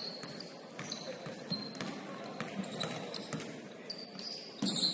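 Basketball game on a hardwood gym floor: a ball bouncing, sneakers squeaking and players calling out, ringing in a large hall. A louder cluster of squeaks and thuds comes near the end.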